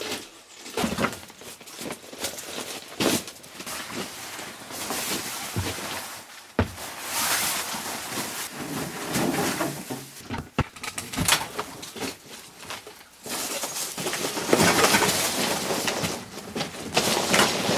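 Irregular rustling and shuffling with scattered sharp knocks as a person moves about and handles things in a small wooden shed.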